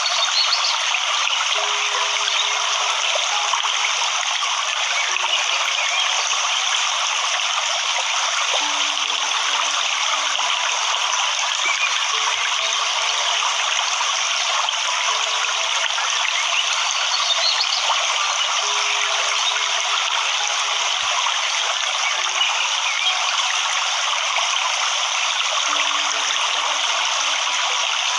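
Waterfall water rushing in a steady, unbroken noise, with brief low tones now and then.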